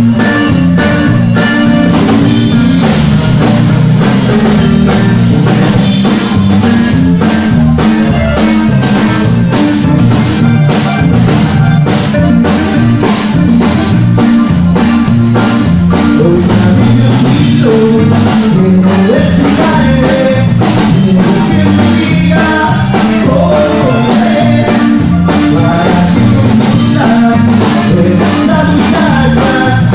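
Live band playing a Tejano song loudly: acoustic guitar over a steady drum-kit beat, with a man singing.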